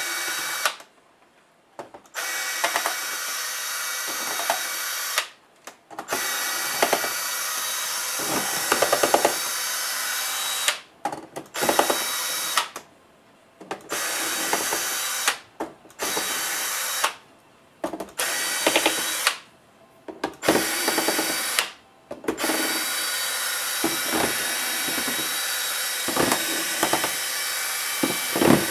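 Cordless electric screwdriver running in repeated runs of one to several seconds, with short pauses between, backing screws out of a laptop's bottom case.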